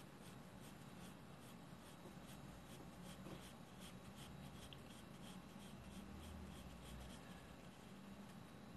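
Pencil hatching on sketchbook paper: faint, quick scratchy strokes, about three or four a second.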